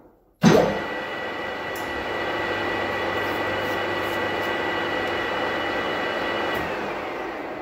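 Manual lathe starting up with a sudden clunk half a second in, then its motor and gearbox running steadily with a whine while the chuck turns. About six and a half seconds in the whine stops and the spindle coasts down, fading away.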